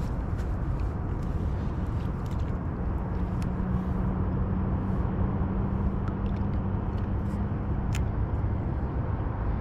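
Steady low rumbling noise on a kayak at sea, with a faint steady hum through the middle and a few light clicks.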